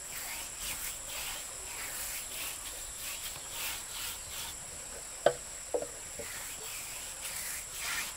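Steady high-pitched chirring of insects, with two sharp knocks about half a second apart a little over five seconds in.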